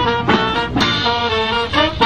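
Band playing loud, up-tempo music, with brass horns carrying the tune over a drum kit.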